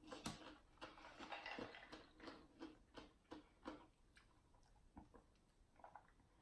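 Faint close-miked chewing of food: soft wet mouth clicks about three a second, stopping about four seconds in, followed by near silence with a few faint ticks.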